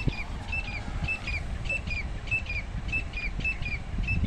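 A small bird calling a run of short, high chirps, two or three a second, over a steady low rumble.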